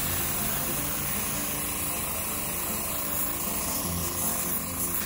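Central Pneumatic airbrush spraying leather dye: a steady, even hiss of compressed air and atomised dye.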